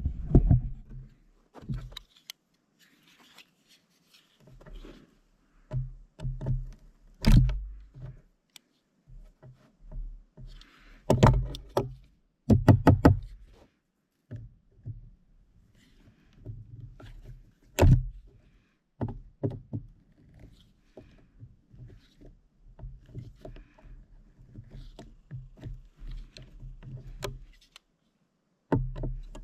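Small folding multitool's screwdriver being turned by hand to drive a small drywall screw into a 2x6: irregular clicks and knocks of metal tool, screw and wood as the grip is reset, with short runs of quick clicks and low handling noise.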